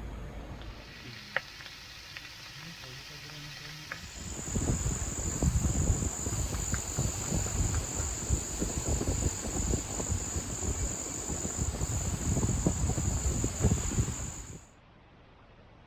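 Insects chirring in one steady, unbroken high tone, over gusty wind buffeting the microphone; both start about four seconds in and cut off abruptly near the end.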